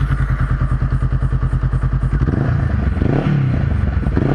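Honda CBR500R parallel-twin engine running through a Two Brothers M-2 carbon-fibre slip-on exhaust, with a loud, rapid, even exhaust pulse. It is revved briefly about two to three seconds in.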